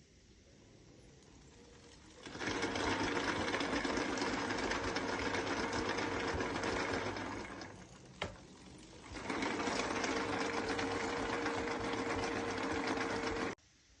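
E-bike motor run twice, each time for about five seconds, with a fast, rattling knocking from its planetary gear: the plastic gear's teeth are badly damaged. The first run starts about two seconds in; the second cuts off abruptly near the end.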